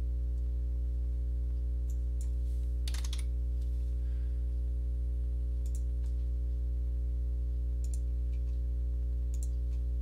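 A few scattered computer mouse clicks and keyboard taps, about six in all, the strongest about three seconds in, over a steady low electrical hum with a buzz.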